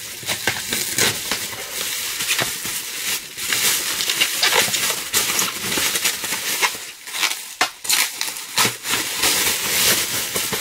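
Packaging crinkling and crackling as a mug is unwrapped by hand, a continuous run of sharp crackles and rustles.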